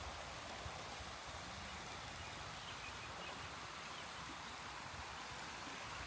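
Shallow river running over rocks: a steady rush of water.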